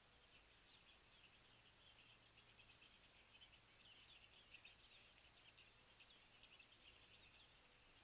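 Faint, rapid high twittering of small birds, a continuous run of short chirps.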